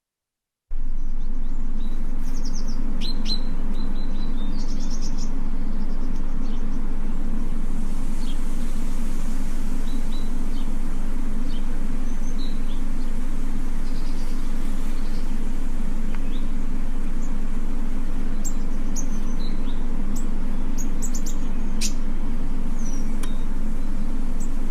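Small birds chirping in short, scattered calls over a steady low rumble that starts abruptly just under a second in.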